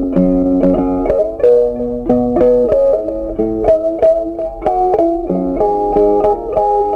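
Background music: a plucked guitar playing a melody of quick notes over held chords.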